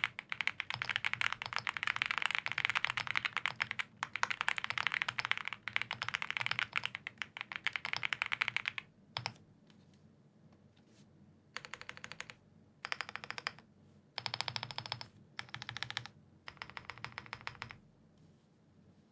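Typing on a custom mechanical keyboard: an Owlab Spring case with a POM plate, lubed Gazzew Boba U4T tactile switches and GMK keycaps. Fast continuous keystrokes run for about nine seconds, followed by a few short bursts of rapid key presses and a stop shortly before the end.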